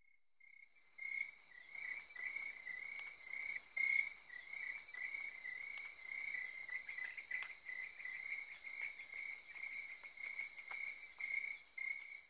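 Crickets chirping in a steady, slightly pulsing trill, with a fainter higher insect hum and a few soft clicks.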